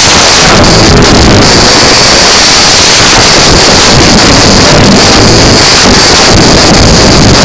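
Rock band playing live, recorded so loud that the sound is overloaded and clipped into a constant, distorted roar in which no instrument or voice stands out.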